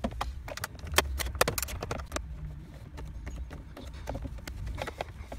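Irregular sharp clicks and taps of a 7mm socket tool working the instrument-cluster screws loose, thickest in the first two seconds and then sparser, over low handling rumble.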